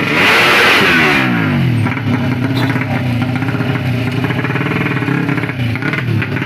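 Tuned 200cc four-stroke underbone drag bike engine revving hard; it is loudest in the first second or so, then the pitch falls away and it keeps running with a rapid pulsing beat.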